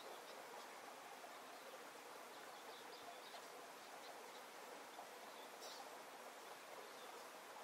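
Near silence: a faint steady hiss with scattered faint, short high chirps.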